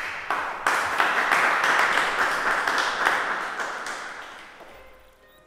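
A small audience applauding, strongest in the first three seconds and dying away over the last two.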